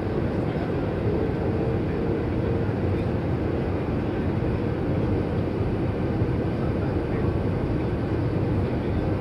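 Steady cabin noise of a Wizz Air Airbus jet airliner on approach: the roar of the wing-mounted jet engine and rushing air, heard from a window seat beside the engine. A faint steady hum sits on top for the first few seconds.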